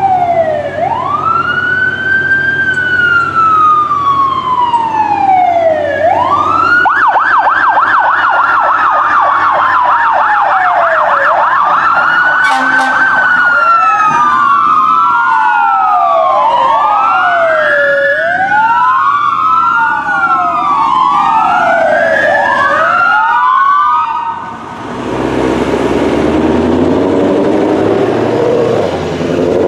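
Fire engine's electronic siren wailing up and down, switching for a few seconds to a fast yelp. A second siren's wail overlaps it and the cycles quicken. Near the end the sirens cut off, leaving a short hiss and the truck's engine running.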